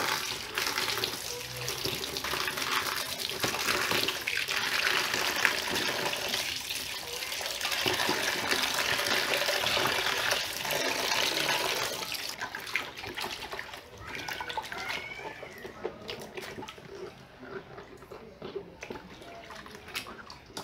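Tap water pouring into a basin of vegetables, splashing steadily. About twelve seconds in the flow stops, leaving quieter sloshing and splashing as hands rub the vegetables in the water.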